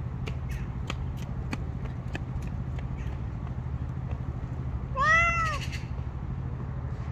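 A cat meows once, about five seconds in: one short call that rises and falls in pitch. Underneath there is a steady low hum and a few scattered light clicks.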